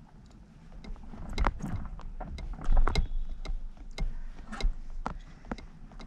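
Water lapping against a paddleboard, with a low rumble and many sharp clicks and knocks of the board and the gear on it, busiest in the first half.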